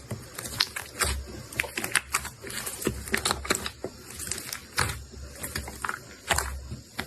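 Slime being squeezed and pressed by hand, giving quick irregular clicks and crackles with a soft low thud about every one and a half seconds.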